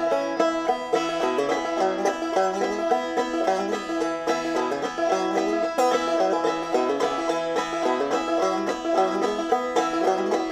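Instrumental music played on a plucked string instrument: a fast, steady run of picked notes with no singing.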